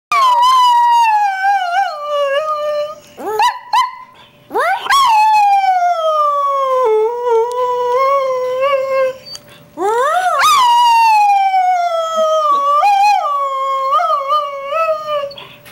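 Greyhound howling in three long, wavering calls. Each one rises quickly and then slides slowly down in pitch, with brief breaks between them.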